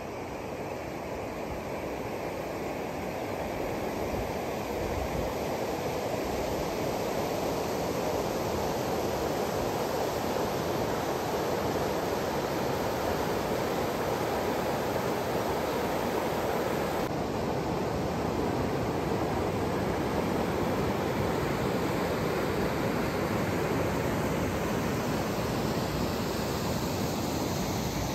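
Rushing river water, a steady wash of noise that grows louder over the first several seconds and then holds steady.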